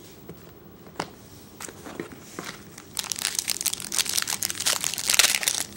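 A few light clicks of cards being handled, then about three seconds in a trading-card pack wrapper is crinkled and torn open with a loud, dense crackle that continues.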